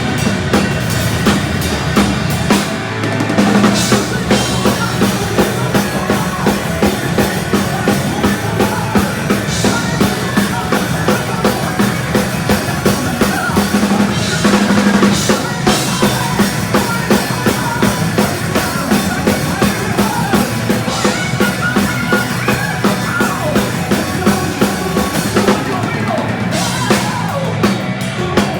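Heavy speed metal band playing live, its drum kit driving a steady fast beat with kick drum and snare under the full band.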